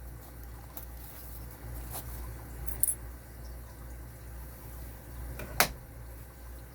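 A few sparse small clicks and taps of hand tools against the metal of a padlock being worked at its screws, the loudest a sharp click about five and a half seconds in, over a low steady hum.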